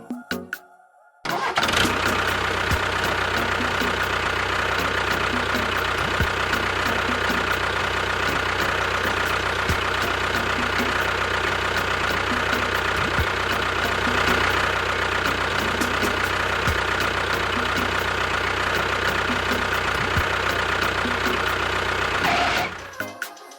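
Engine running steadily at a constant pitch, starting abruptly about a second in and cutting off near the end.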